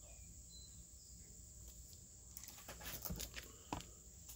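Faint rustles and clicks of comic books being handled and swapped, clustered in the second half. A steady faint insect trill runs behind.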